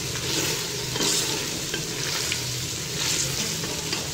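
Beef trotters (paya) and their cooking liquid sizzling and bubbling steadily in an open aluminium pressure cooker on the heat, with a few faint pops.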